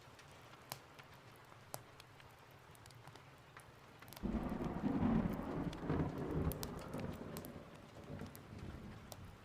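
Steady rain with a few scattered sharp pops. About four seconds in, a sudden roll of thunder breaks out, is loudest about a second later and rumbles away over the next four seconds.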